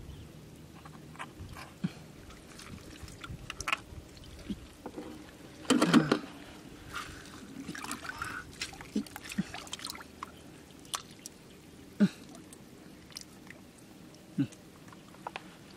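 Hands splashing and moving through shallow river water while gathering clams, with scattered small splashes, drips and clicks of shells and stones; the loudest splash comes about six seconds in.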